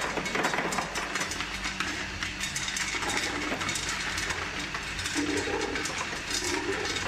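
Cut tube ice dropping from a tube ice machine's outlet chute, the pieces clattering in a continuous stream of quick clicks into a tub of water and onto a plastic shovel. The machine hums steadily underneath.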